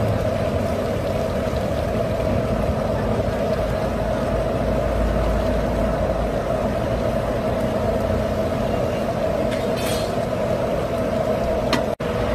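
Mutton and water boiling hard in a karahi on the stove, a steady rushing bubble as the water cooks down. The noise breaks off for an instant near the end.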